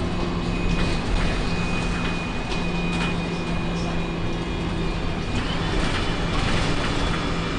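Inside a moving Alexander Dennis ALX300-bodied MAN 18.220 single-deck bus: a thin, steady high whistle sounds over the drone of the diesel engine. About five and a half seconds in a second, higher whistle comes in.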